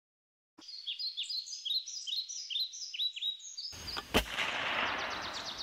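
Birdsong, a bird repeating quick falling chirps. Then, about three and a half seconds in, a sudden rush of noise with one sharp shot-like crack in it, fading over the next two seconds while the chirping goes on.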